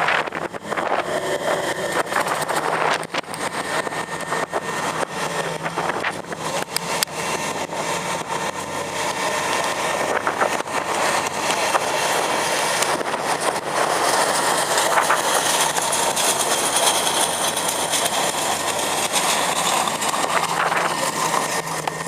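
A car's engine running with heavy surrounding noise, loud and fairly steady throughout.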